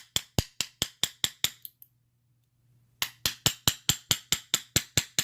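Bump key in a Master Lock padlock being struck with an improvised bump hammer to jar the pin tumblers open: quick, even sharp taps about five a second, in two runs with a pause of about a second in between.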